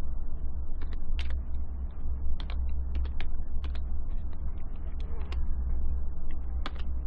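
Computer keyboard keystrokes, a dozen or so irregular taps as a word is typed and Enter is pressed, over a steady low hum.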